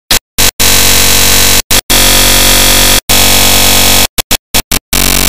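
Loud, harsh digital noise with a steady buzz, stuttering in chunks that cut in and out abruptly with dead silence between them. This is the glitched sound of a damaged, recovered dashcam recording.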